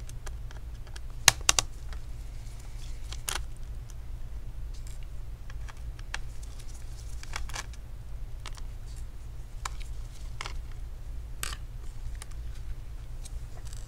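Small sharp clicks and taps of a screwdriver on the Phillips screws and plastic chassis of a laptop while the battery screws are taken out. The loudest is a quick pair of clicks about a second in, and fainter clicks follow at irregular intervals over a steady low hum.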